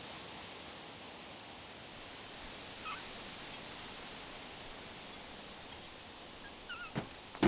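Steady hiss of outdoor ambience, like wind, with a few faint short chirps in the middle and near the end, and a sharp knock just before the end.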